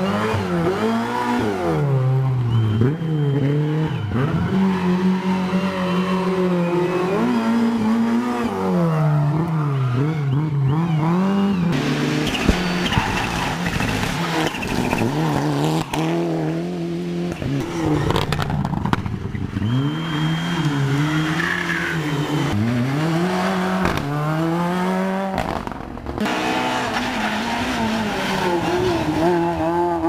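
Rally cars being driven flat out past the spectator one after another. Their engines rev hard, and the pitch climbs and drops sharply with each gear change and lift, with tyre noise in the corners.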